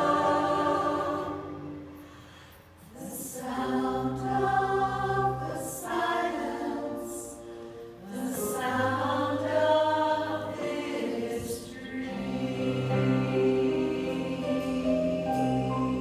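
Choir singing held chords that fade almost away about two to three seconds in, then swell back, with crisp hissing 's' consonants cutting through at several points.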